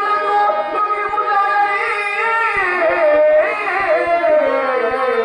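A voice singing a slow, ornamented song in a live Telugu folk stage play, the notes held long and then wavering in runs through the middle, over a steady musical accompaniment.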